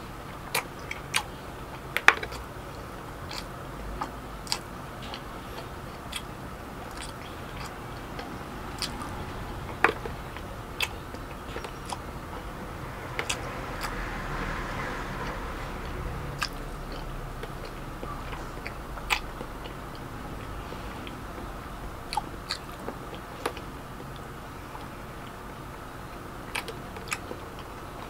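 Close-up mukbang eating sounds: chewing and biting, with scattered sharp wet clicks and smacks of the mouth every second or so.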